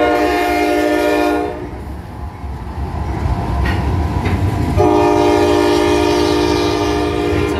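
CSX freight train's locomotive horn sounding two blasts of several notes at once, a short one at the start and a longer one about five seconds in, over the steady low rumble of hopper cars rolling past.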